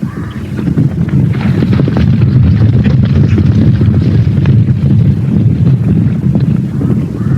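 A loud, dense low rumble that starts suddenly, with many small knocks running through it.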